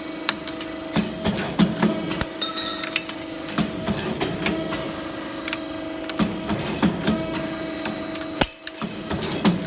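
Machinery running with a steady hum and frequent irregular clicks and knocks.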